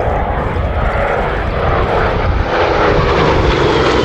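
Douglas A-26 Invader's twin Pratt & Whitney R-2800 radial piston engines running in a flypast, growing louder, with the engine note sliding down in pitch in the second half as the aircraft passes.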